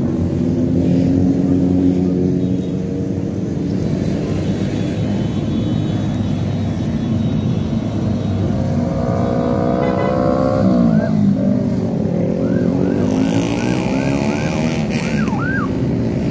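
Motorcycle engines running as a police-escorted motorcycle convoy rides past, their pitch sliding down as bikes pass about two-thirds of the way in. Near the end a police motorcycle siren gives a quick string of short rising-and-falling whoops.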